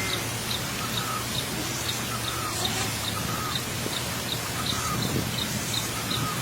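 Birds calling: a short high chirp repeats evenly about three times a second, with other scattered short notes, over a steady low hum.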